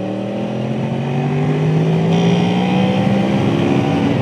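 Motorcycle engine pulling under steady acceleration, its pitch rising slowly through the gear, over a steady rush of wind on the bike-mounted microphone.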